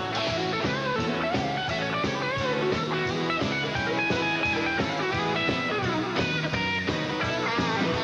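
Live band playing an instrumental passage: an electric guitar on a Fender Stratocaster through a Fender Twin Reverb amp plays a lead with bent notes over drums, bass and strummed acoustic guitar.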